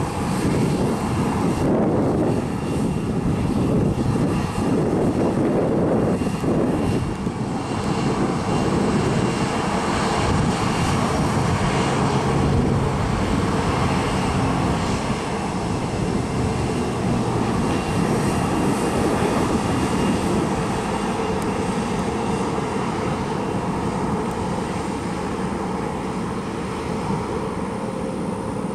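Aircraft engine noise, a steady loud rumble: first the jet engines of a Boeing 737 airliner on the runway, then from about seven seconds in the twin piston engines and propellers of a Cessna 402C on final approach and landing, easing slightly near the end.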